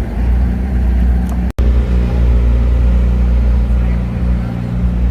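Steady low vehicle hum, with a momentary dropout about one and a half seconds in.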